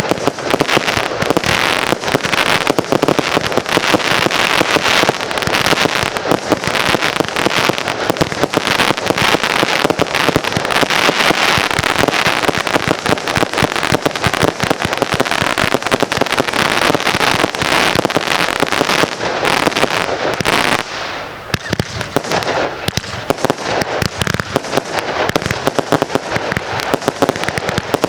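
Fireworks display in a dense, near-continuous barrage of rapid bangs and crackles, easing briefly about three-quarters of the way through before building again.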